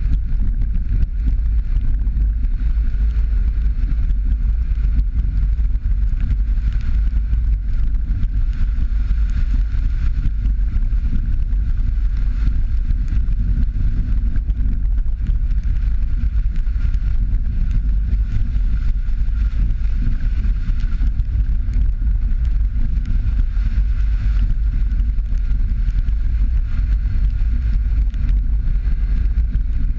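Jeep Patriot driving along a rough dirt road: a steady low rumble of engine, tyres and road noise.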